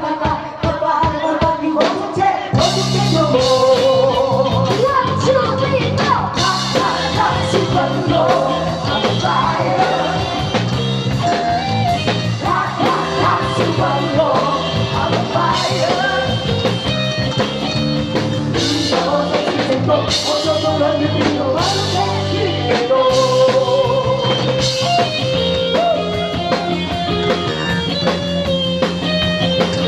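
A rock song with singing over drums, bass and guitar. The drums and bass come in fully about two and a half seconds in.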